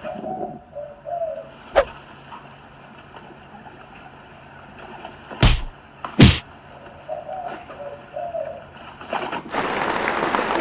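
Pigeons cooing, broken by three sharp slap sound effects, one about two seconds in and two in quick succession near the middle. Dubbed-in crowd applause starts near the end.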